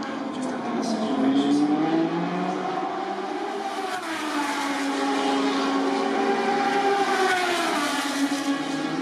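Moto2 race motorcycles' Triumph 765 cc three-cylinder engines running hard as the bikes lap the circuit. The engine pitch rises and falls, dropping sharply about four seconds in and again near the end.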